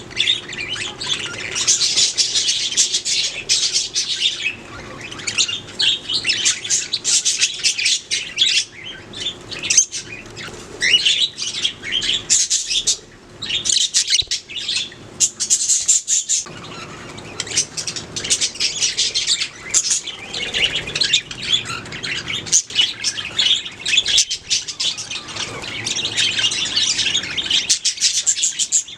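Budgies singing and chirping in a dense, rapid chatter of high chirps and trills, broken by a couple of brief pauses.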